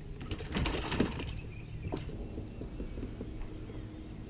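Handling noise on the fishing kayak: a quick run of clattering knocks and clicks about half a second to a second in, one more sharp click about two seconds in, then only a faint low steady hum.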